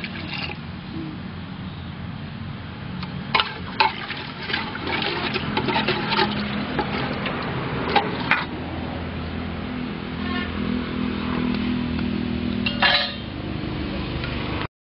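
Perforated steel ladle clinking and scraping against an aluminium cooking pot as watery biryani masala is stirred, in scattered clinks with a busier run a few seconds in and one sharp clink near the end, over a steady low hiss.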